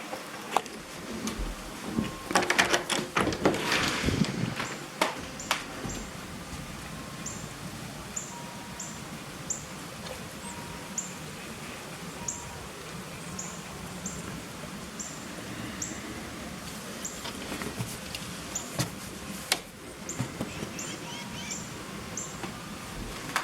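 A small bird chirping repeatedly, short high chirps at uneven intervals. A burst of rustling and clicks comes a couple of seconds in.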